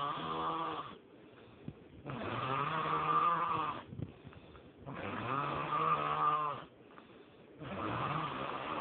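A person snoring in a steady rhythm, one pitched snore about every three seconds. Quieter breaths fall between the snores.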